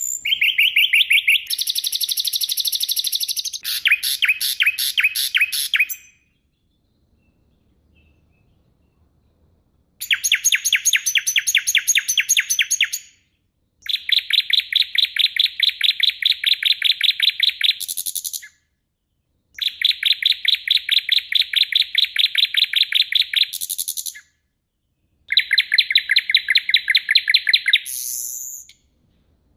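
Songbird song in bouts of rapid, sharp repeated notes, each bout lasting three to six seconds with short silences between them.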